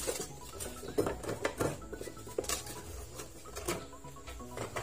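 Hand tools and other items knocking and clattering against the plastic of a Kenmaster toolbox as they are set into its compartments: about half a dozen separate knocks.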